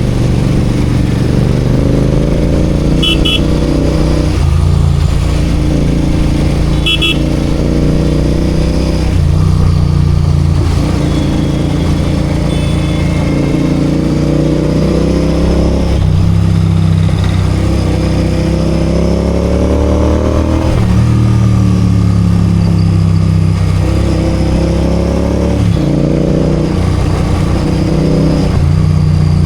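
Royal Enfield Continental GT 650's parallel-twin engine running in city traffic, rising in pitch under acceleration and dropping back several times as gears are shifted. Two short horn beeps sound about three and seven seconds in.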